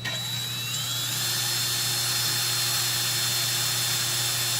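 Electric power drill starting up and drilling a bolt hole through the top sign frame and flapper. Its motor whine rises over the first second, then it runs steadily.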